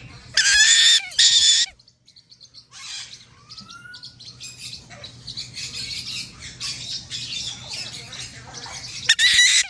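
Baby parrots calling: two loud, shrill squawks about half a second in, then softer chirps and chatter, and another loud squawk near the end.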